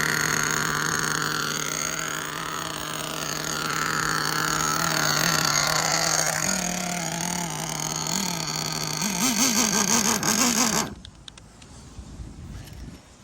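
Small nitro engine of a Kyosho Inferno NEO ST 3.0 RC truck running, its pitch wandering, with quick revs near the end. The sound cuts off abruptly about eleven seconds in.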